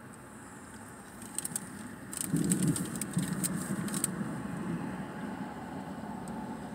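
A paper food wrapper crinkles and crackles in short clusters as it is handled. About two seconds in, a low engine rumble of a motor vehicle rises and keeps running.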